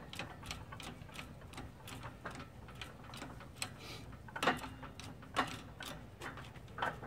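Hydraulic bottle jack on a shop press being pumped by hand under load: an uneven run of light clicks and ticks from the pump handle and press, with two louder knocks about four and a half and five and a half seconds in, as a part is pressed into a GY6 scooter crankcase.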